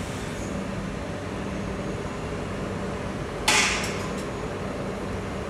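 Steady low hum of a standing electric train, with a sudden sharp hiss of compressed air released about three and a half seconds in. The hiss fades within half a second and is followed by two faint short puffs, typical of a train's pneumatic brake or air system venting.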